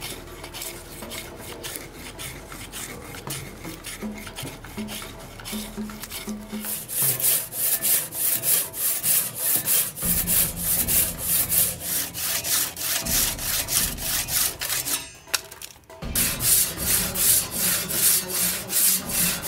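Japanese handsaw cutting through an olive-wood trunk: quick, even back-and-forth strokes about three a second from about seven seconds in, with a short break near the end before the strokes resume. Before that, quieter rubbing of a hand plane shaving the wood.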